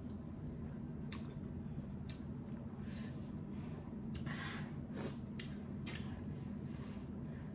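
Close-miked eating sounds: instant noodles slurped and chewed, with short clicks and scrapes of a fork and spoon on the plate, about once a second, over a steady low hum.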